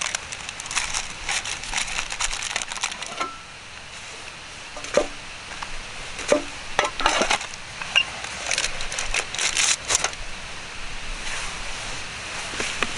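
Irregular sharp clicks and crackles, some clinking, coming in clusters with a quieter spell around four to six seconds in.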